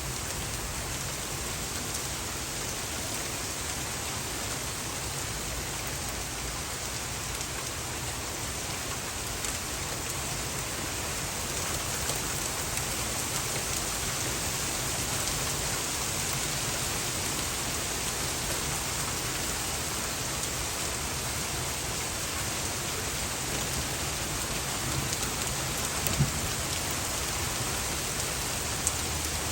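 Steady heavy downpour of rain and hail pelting down, growing slightly louder part way through, with a few sharper single strikes near the end.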